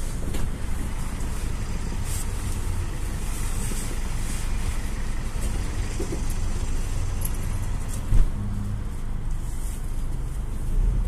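GAZ-A68R52 GAZelle City minibus on the move, heard from inside: a steady low rumble of engine and road noise, with a single thump about eight seconds in.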